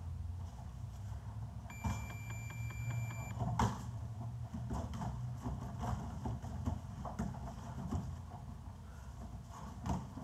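A round timer gives one long electronic beep, about a second and a half, then the sparring starts: a sharp loud smack, followed by scattered thuds of punches and kicks landing and feet on the mats, over a steady low hum.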